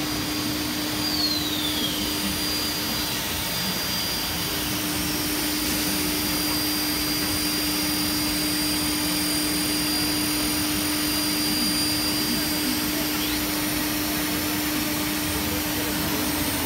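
Three-metre aluminium-profile CNC machining centre with its spindle milling along an aluminium profile: a steady mechanical drone with a low hum and a high whine, the whine dropping out about three-quarters of the way through.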